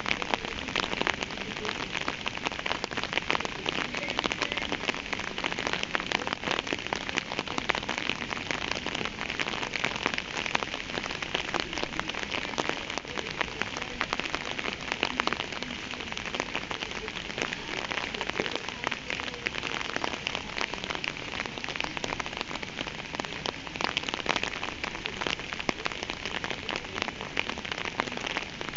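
Steady rain falling: an even hiss made of countless small drop impacts, unchanging in strength.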